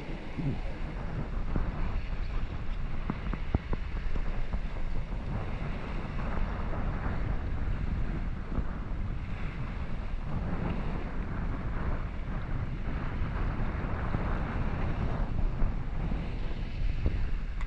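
Wind buffeting the microphone over the steady rush of sea water around a small fishing boat's hull.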